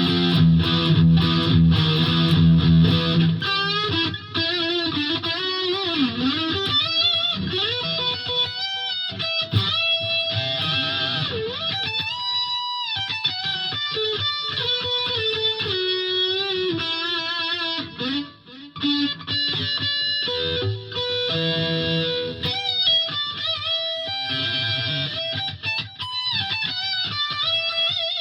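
Gibson Les Paul Classic electric guitar with a Seymour Duncan SH-1 humbucker, played through a Fender Mustang LT50 amplifier on its lead setting. Heavy chords for the first few seconds, then single-note lead lines with string bends, vibrato and held notes.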